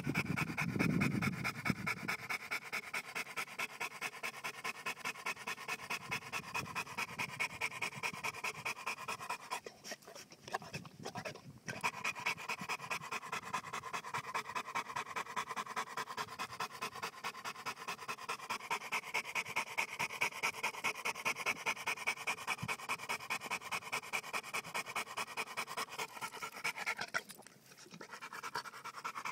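Johnson-type American bulldog panting fast with its mouth open, a steady rhythm of quick breaths that breaks off briefly twice, about ten seconds in and near the end.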